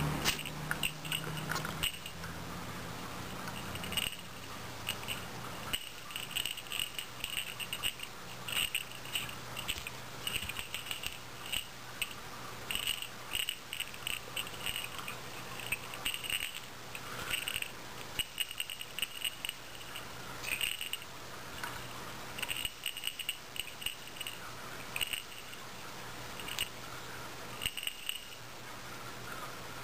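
Small jingle bell jingling in short, irregular shakes, again and again, as a cat toy is played with.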